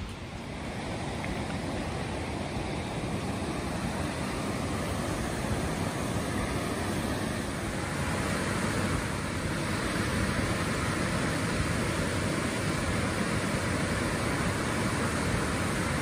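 Waterfall rushing: a steady, even roar of falling water.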